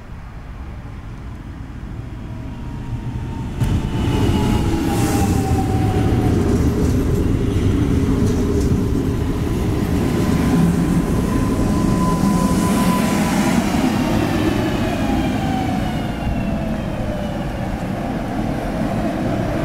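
Newag Impuls 31WE electric multiple unit running in along the platform and slowing: a growing rumble of wheels and cars, with several whining tones from the electric traction drive falling in pitch as the train decelerates.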